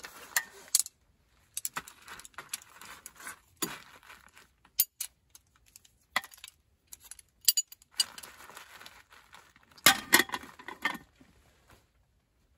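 Folding camp table being unpacked and set up: its metal frame poles clink and rattle as they are spread and their joints click into place, and the hinged slats of the top clatter as they are unrolled, with short quiet gaps between the bursts of handling.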